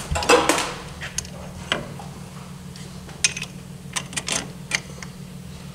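Irregular light metallic clicks and clinks of a hand tool working on ATV suspension hardware, with a louder clatter right at the start and single clicks a few seconds in, over a steady low hum.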